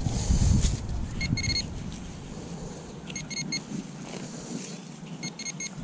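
A handheld metal-detecting pinpointer beeps in three short bursts of rapid high beeps, about two seconds apart, as it is probed into a freshly dug hole, signalling a metal target close by. At the start, a digging knife cuts into the turf with a crunch of soil and roots.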